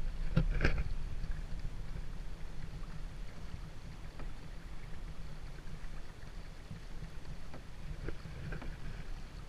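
Pedal-driven Hobie Mirage Pro Angler 14 kayak moving through the water: water rushing and lapping along the hull under a steady low wind rumble on the microphone. A few short knocks come about half a second in and again near the end.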